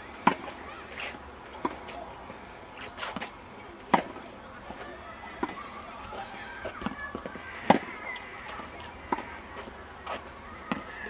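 Tennis balls struck by rackets and bouncing on the court: sharp single knocks every second or so, the loudest about four seconds apart.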